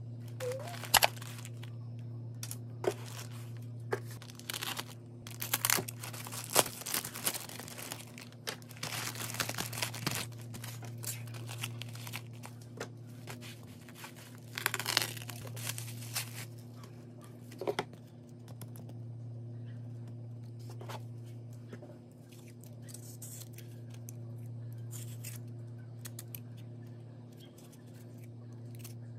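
Plastic bubble mailer crinkling and tearing as it is opened by hand, in many sharp crackles that are dense through the first half and thin out later. A steady low hum runs underneath.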